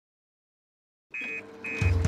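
Silence for about a second, then two short high electronic beeps about half a second apart from a fire station's alarm teleprinter as it prints out a call. Under them a steady low tone, and the heavy bass of theme music comes in near the end.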